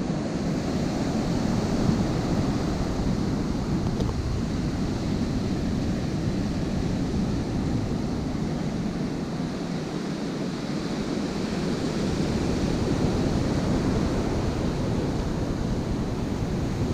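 Ocean surf breaking and washing onto the beach in a steady roar that swells and eases, with wind buffeting the microphone.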